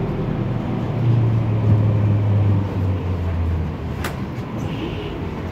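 Temsa MD9 LE city bus heard from inside the passenger cabin while driving: its diesel engine and Allison automatic gearbox give a low drone that grows louder about a second in, then eases off and drops slightly in pitch. A single sharp knock comes about four seconds in.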